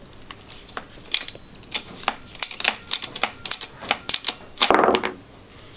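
Amtech ratchet mini lopper cutting a thick branch of dense, green hawthorn: a run of sharp, irregular ratchet clicks as the handles are worked, then a longer, louder crunch near the end as the blade bites through the wood.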